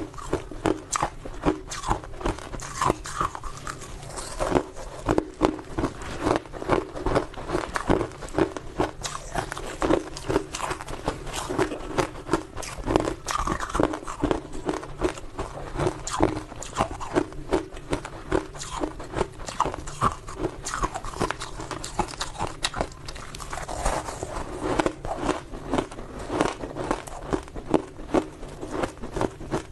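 Ice being bitten and chewed: a continuous run of hard, sharp crunches, several a second.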